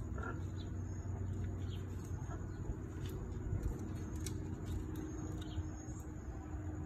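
Outdoor background with a steady low hum and a thin steady high tone, broken by a few short bird chirps and scattered faint clicks.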